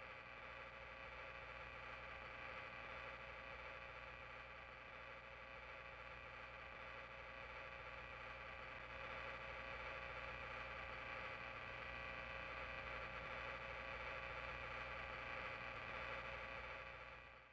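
A faint, steady buzzing hiss with a fixed set of tones running through it. It gets slightly louder about halfway through and stops abruptly at the very end.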